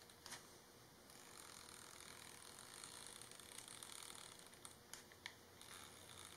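Near silence: faint hiss with soft handling noise as a rubber drawer mat and a woven basket are handled, with a light click just after the start and two more about five seconds in.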